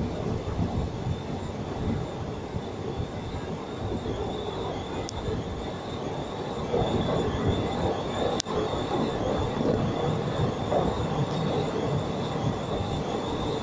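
Train running on the track: a steady rumble of wheels and carriages with a thin, steady high whine above it, and one sharp click about eight seconds in.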